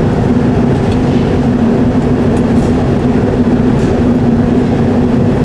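Glass workshop furnace and burners running with a loud, steady rushing noise and an even hum underneath.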